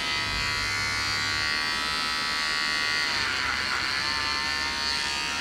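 Electric hair clipper buzzing steadily as it cuts hair at the back of the neck. Its pitch dips briefly about three seconds in.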